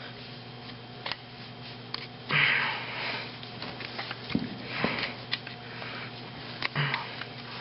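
Light metal clicks and taps from hand tools working on a disassembled engine during bearing removal, with three short breathy rushes about two, five and seven seconds in, the first the loudest, over a steady low hum.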